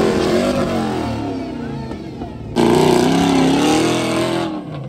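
Off-road 4x4 engines revving hard under full throttle during a steep dirt hill climb, the pitch rising and falling as the throttle is worked. About two and a half seconds in, the sound cuts abruptly to a second vehicle's engine revving, which fades near the end.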